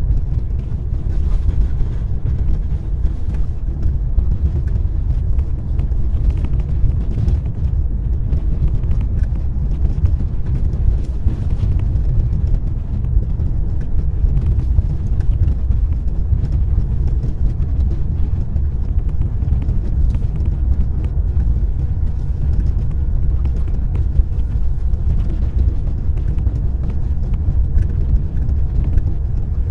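A car driving steadily on a snowy road: a constant low rumble of tyres and engine, with faint scattered ticks.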